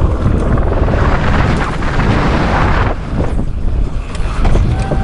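Wind buffeting the helmet-mounted camera's microphone, mixed with the rattle and scrub of mountain bike tyres on steep loose dirt and rock; the level dips briefly about three seconds in.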